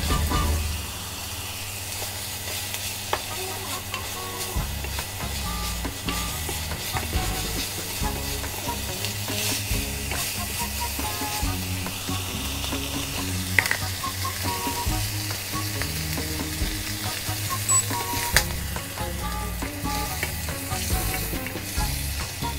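Shrimp and onions sizzling in a hot nonstick frying pan as they are stir-fried with gochujang, a wooden spatula scraping and stirring through them. A few sharp taps of the spatula on the pan stand out.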